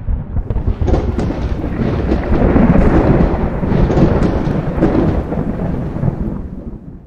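Deep, thunder-like rumbling sound effect of an animated smoke-cloud logo intro, starting suddenly, with a few sharp crackles, and fading away near the end.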